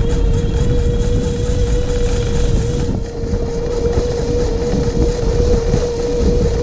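Electric rear hub motor of an e-bike running under throttle with a steady whine, over wind rumble on the camera microphone and tyres rolling on a dirt trail.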